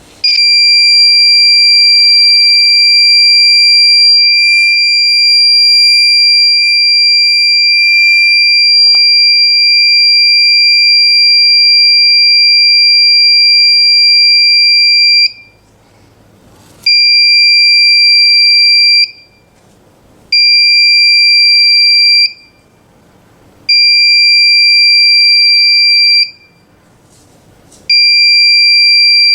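Buzzer of a reed-switch security alarm sounding one steady, high-pitched tone for about fifteen seconds. It then switches on and off in four bursts of about two seconds each as the reed switch is tripped and reset.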